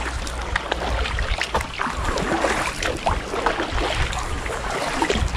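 Double-bladed kayak paddles dipping and pulling through calm sea water, with many small drips and splashes from the blades.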